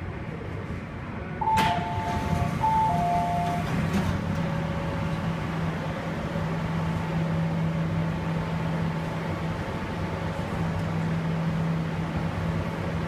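MTR C-Train's doors and the platform screen doors sliding open with a sudden clunk, and a two-note falling door chime sounding twice. The standing train's steady low hum carries on after the chime.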